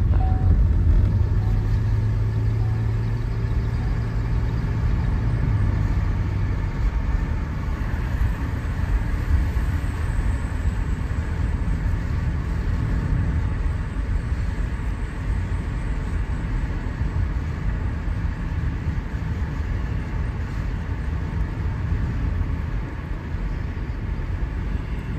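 Motor vehicle engine running with a steady low hum for about the first six seconds, which then drops away, leaving a continuous low rumble.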